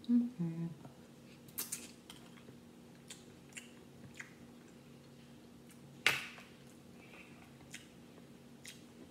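Crab leg shells cracking and snapping as they are broken open by hand, with chewing in between: a string of sharp cracks, the loudest about six seconds in.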